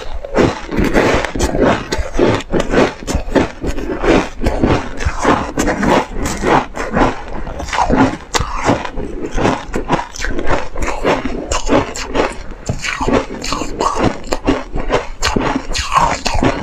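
Ice being crunched and chewed close to the microphone: a fast, irregular run of crisp crunches without a break.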